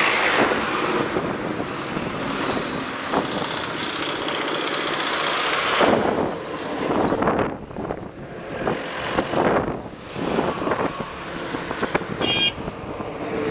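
Wind buffeting the microphone of a moving motorcycle, with road and traffic noise, swelling and dropping unevenly. A short high-pitched beep sounds near the end.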